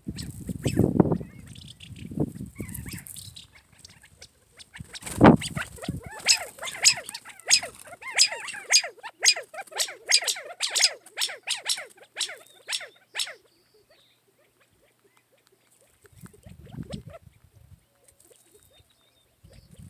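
Quail and cottontail rabbits feeding on seed on gravel: a run of sharp clicks and pecks, about two to three a second, for several seconds after a single loud knock, with low rumbles near the start and near the end.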